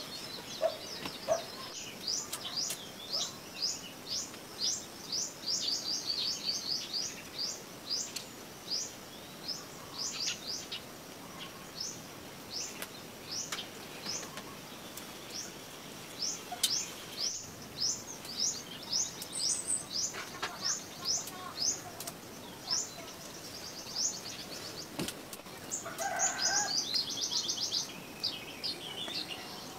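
A bird chirping: a long series of short, high, falling chirps, about two or three a second, with a couple of pauses and a quicker, denser run near the end. A few sharp clicks come in between.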